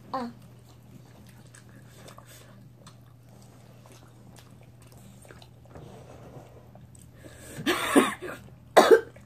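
Faint chewing and small clicks over a low steady hum, then near the end two loud vocal outbursts from a woman: one longer and wavering, then a short one, as she reacts to the heat of the wings.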